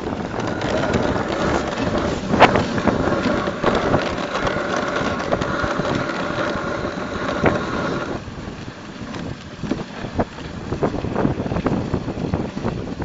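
Wind rushing over the microphone and a dog sled's runners hissing over snow as the sled is pulled along. Sharp knocks come about two and a half seconds in and several more near the end.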